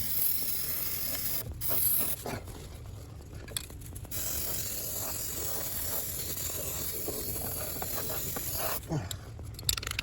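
Aerosol can of rust reformer spraying into a rusted-out rocker panel cavity: a few short hissing bursts, then one long steady spray of about five seconds starting about four seconds in.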